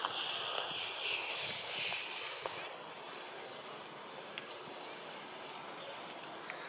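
Outdoor natural ambience: a steady high-pitched hiss of background noise, with a short rising chirp about two seconds in and a few faint clicks.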